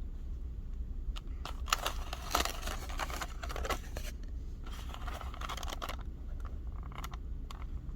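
Kitchen handling sounds: scattered light clicks and scrapes of utensils and dishes over a steady low hum.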